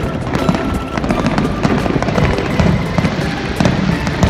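A fireworks display: a dense, irregular run of bangs and crackles, with music playing over it.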